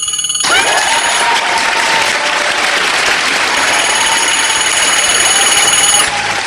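Audience applause, a dense clapping that starts about half a second in and stops abruptly about six seconds in, with faint steady high tones behind it.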